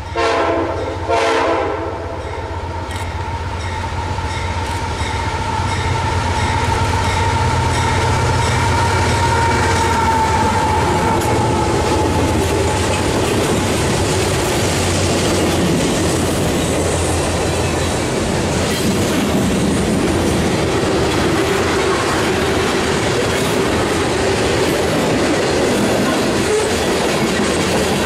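Freight train: the diesel locomotive sounds two short horn blasts, then runs louder as it approaches and passes, its tone dropping as it goes by. A long string of boxcars, covered hoppers and tank cars then rolls past with steady wheel clickety-clack.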